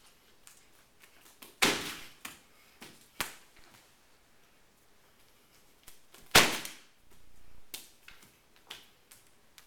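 A series of sharp knocks and slaps in a small echoing room: two loud hits about five seconds apart, the first near the start and the second past the middle, with several lighter ones in between.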